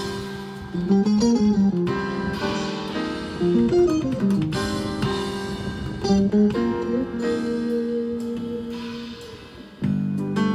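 Guitar music: a run of plucked notes, some sliding in pitch, with a louder passage of held notes starting near the end.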